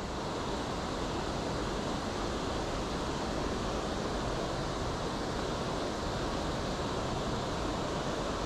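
Steady rush of river water pouring over a weir, an even roar with no breaks.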